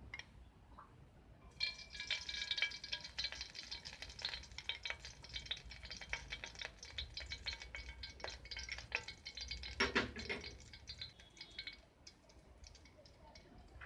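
Metal spoon stirring and scraping in a metal cooking pot: quick clinks with the pan ringing. It starts about a second and a half in and stops near the end, with one louder knock about ten seconds in.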